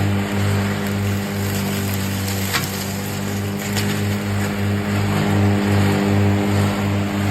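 Tracked remote-controlled lawn mower running steadily under load as it pushes into blackberry brush, with two brief sharp cracks about two and a half and three and a half seconds in.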